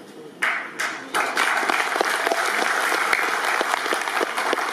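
Audience applauding: a few scattered claps about half a second in, then full, steady applause from about a second in.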